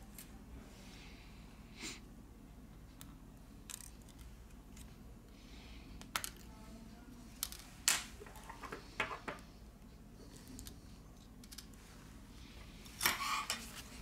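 Scattered small clicks and taps of hand tools and tiny parts being handled on an opened smartphone, about a dozen in all, with a quick cluster near the end.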